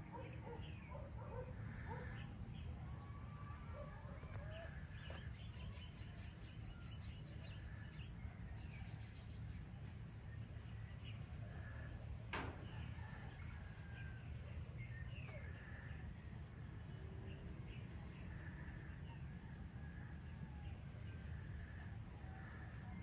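Outdoor morning ambience: many birds chirping and calling in short scattered notes, with a fast trilling series about five to nine seconds in, over a steady low rumble and a faint steady high hiss. A single sharp click about twelve seconds in.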